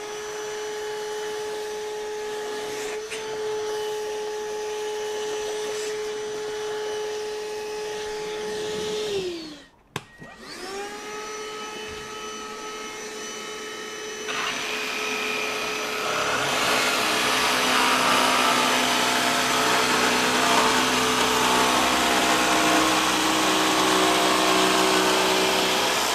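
A small dust extractor's motor spins up and runs with a steady whine while vacuuming sawdust, winds down about nine seconds in, then starts again. A little past halfway, a Festool Carvex PSC 420 18V brushless cordless jigsaw starts and cuts through plywood, louder than the extractor, which keeps running through the hose attached to the saw.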